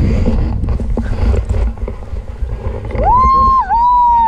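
Wind rumbling on the camera microphone, then about three seconds in a long, high-pitched two-part whoop from a person, held for over a second before falling away.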